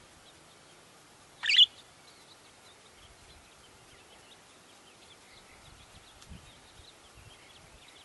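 A budgerigar gives one short, loud, high chirp about a second and a half in, over faint scattered twittering.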